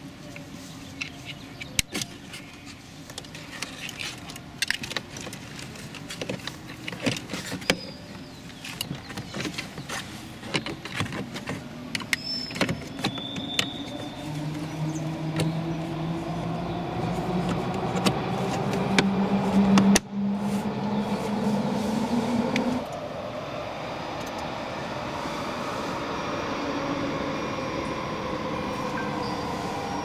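Clicks and rattles of plastic door trim and wiring connectors as a Toyota RAV4's power-window switch panel is handled and pressed back into the door. About halfway a steady hum comes in, its pitch slowly rising, and runs on under the clicks.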